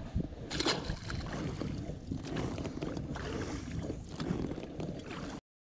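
Oars rowing an inflatable pontoon boat: the blades dipping and pulling through the water with small splashes and knocks. The sound cuts off suddenly near the end.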